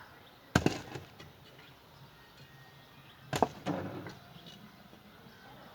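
Two sharp knocks about three seconds apart, the second followed quickly by a lighter one.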